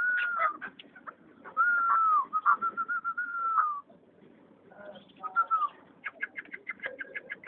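Chukar partridge (chakor) calling: a rapid string of clucking notes with a drawn-out whistled tone over them for the first few seconds, then after a short lull another fast run of clucks from about six seconds in.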